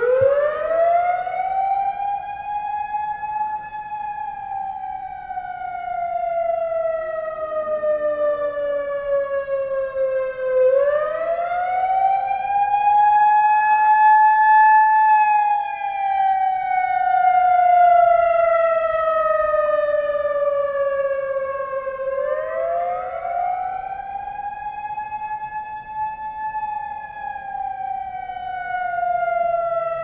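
Whelen WPS 3016 electronic outdoor warning siren starting up suddenly and sounding a wail: the pitch rises quickly over about three seconds, then slides slowly down, and starts over about every eleven seconds, three times. Loudness swells and fades as the rotating speaker array turns. Though built as a dual-tone unit, it seems to have faded over the years and is heard as one pitch.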